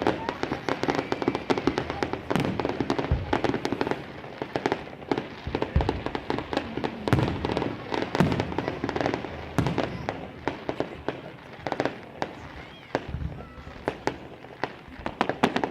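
Fireworks going off: dense rapid crackling and popping throughout, with a few deeper bangs among them.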